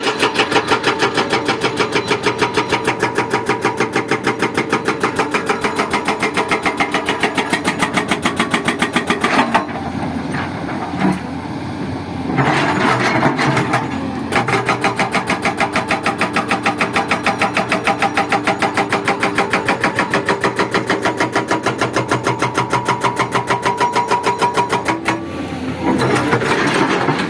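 JCB hydraulic breaker hammering in a rapid, even stream of blows over the machine's running diesel engine. It pauses twice, about ten seconds in and again near the end.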